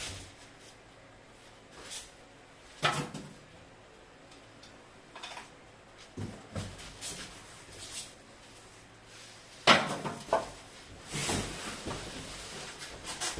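Scattered knocks and thuds with some rustling, from handling and opening a refrigerator's packaging. The two loudest knocks come about 3 s and 10 s in.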